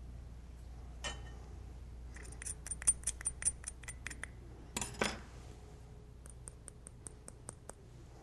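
Small, sharp, glassy clinks and ticks. There is a single click about a second in, then a quick run of about ten, a louder clatter around the middle, and a fainter run of lighter ticks after it.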